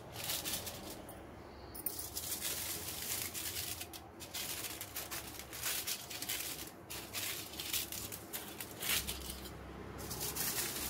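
Aluminium foil crinkling and rustling as it is snipped with large scissors and handled, in a run of irregular crackles with a couple of brief pauses.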